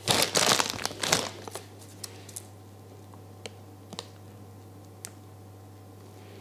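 Plastic piping bag crinkling loudly for about a second as it is gripped and twisted, followed by a few light crackles and ticks as the bag is squeezed.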